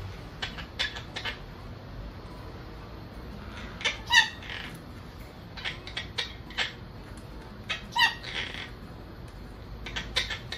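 Pet parrot calling: short chirps near the start, a loud squawk about four seconds in and another about four seconds later, with more short chirps between and near the end.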